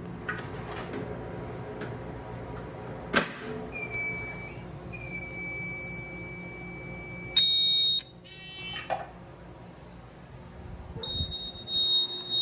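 Fire alarm control panels' trouble sounders going off on power-up. A sharp click comes about three seconds in, then steady high beeps. A louder tone sounds briefly around seven seconds, followed by a rasping buzz, and a steady high tone starts about eleven seconds in. Panels sound like this while they start up, until the trouble is acknowledged.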